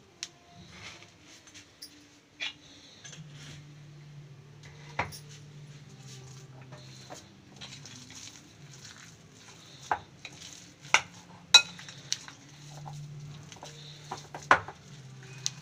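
A spoon stirring a thick curd and paneer batter in a glass bowl: soft scraping and squishing, with irregular sharp clinks of the spoon against the glass, the loudest near the end.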